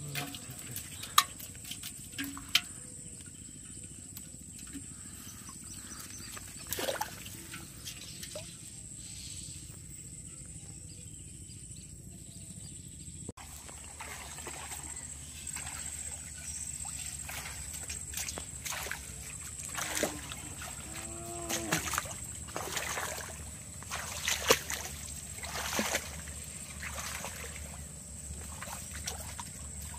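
Water trickling and dripping as shrimp are shaken out of a bamboo fish trap into a metal pot, with a couple of sharp knocks of the trap against the pot in the first few seconds. Later, repeated splashes of a person wading through shallow water and reaching into it, over a steady high drone of insects.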